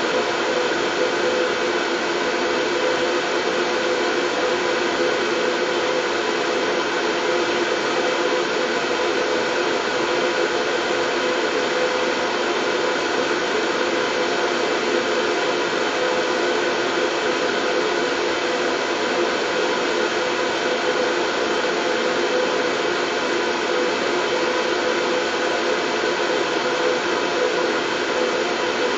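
White noise for lulling babies to sleep: a steady, unchanging hiss with a faint even hum running through it.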